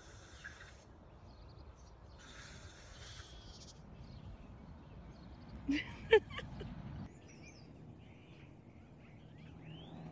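Young goat giving one short bleat about six seconds in, the loudest sound here, over a low steady background rumble.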